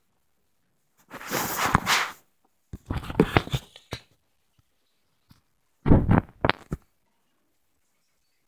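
Handling noise from the recording device being picked up and moved: three short bouts of rubbing and knocking against the microphone, with dead silence between them.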